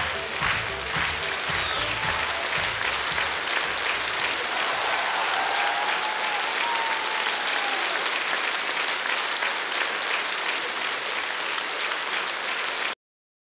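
Audience applauding, with the last beats of the act's music fading in the first second; the applause cuts off suddenly near the end.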